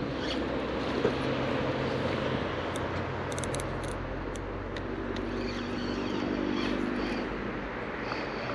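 A steady mechanical hum of several held low tones that shift in pitch a few times, over a soft even hiss.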